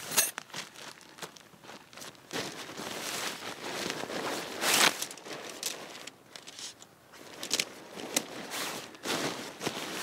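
Nylon tent fabric and a plastic ground tarp rustling and crinkling as a tent is folded and rolled up by hand, in uneven swishes, the loudest a little before halfway through.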